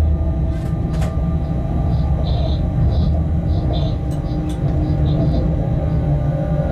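Freight train cab heard while running: a steady low rumble with a steady hum of tones over it. Short high chirping squeaks come and go, and there are a couple of sharp clicks about a second in.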